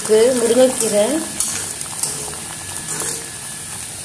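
A metal ladle stirring thick drumstick-leaf and dal kootu simmering in a kadai: a steady sizzling bubble with soft scrapes of the ladle against the pan. A brief snatch of voice is heard in the first second or so.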